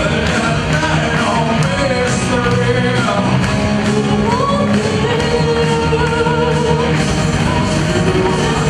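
Rock band playing live with a lead vocal over a steady beat.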